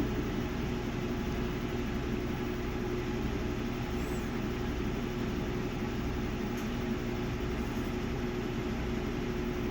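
Samsung WA50R5200AW top-load washing machine running steadily in the last minutes of its cycle, the final spin, with an even motor hum and drum whir.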